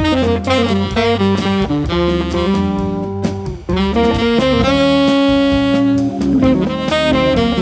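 Jazz quartet playing together, loud from the first moment: tenor saxophone carrying the melody, with some notes held long, over Hammond organ, electric guitar and a drum kit with cymbals.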